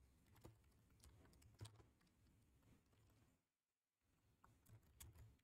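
Near silence broken by a few faint, scattered keystrokes on a computer keyboard, single clicks spaced well apart.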